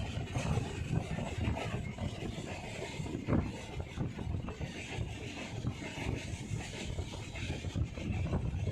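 A passenger train running along the track, heard from aboard: a steady rumble of wheels on rails with irregular clatter and knocks, one sharper knock about three seconds in, and rushing air.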